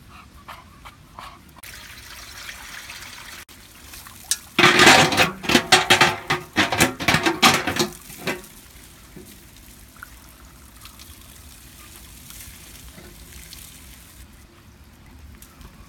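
Water pouring and splashing into a large aluminium pot for about four seconds.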